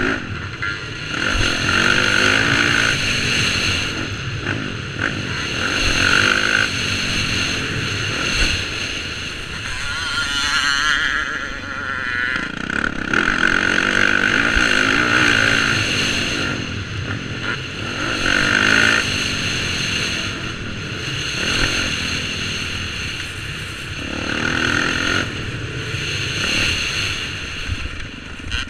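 Dirt bike engine under hard riding, revving up and dropping back again and again as the rider opens and closes the throttle.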